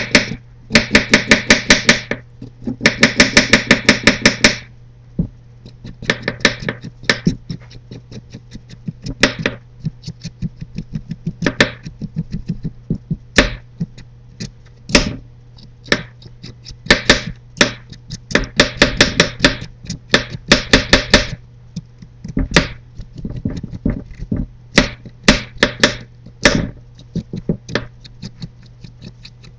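A carrot being peeled against a plastic cutting board: runs of quick scraping strokes, several a second, with short pauses between runs. A steady low hum sits underneath.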